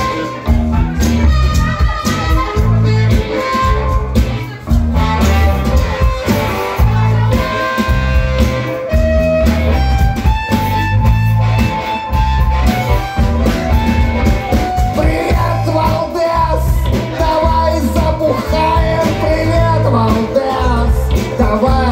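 Live rock band playing an instrumental passage: drum kit and bass guitar under electric guitar and harmonica lines.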